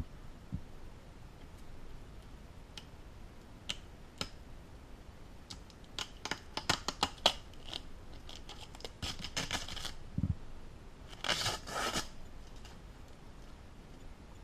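Graphics card box and packaging being handled during unboxing: scattered clicks and short crinkling rustles, busiest in the middle, with a dense burst of crinkling about eleven seconds in.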